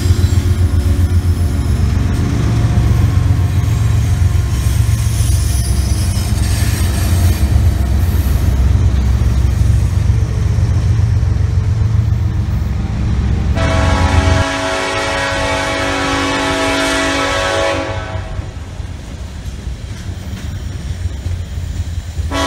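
A diesel locomotive running with a loud, deep, steady rumble. A little past halfway its air horn sounds one long blast of several stacked tones, and the rumble drops away. A second horn blast starts right at the end.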